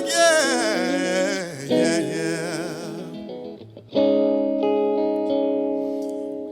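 Live R&B ballad: a singer's wavering, held notes over guitar, then a guitar chord struck about four seconds in that rings out and slowly fades.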